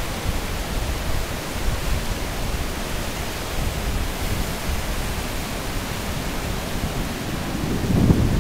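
Niagara River rapids rushing: a steady, even wash of white water. In the last second, low gusts of wind buffet the microphone.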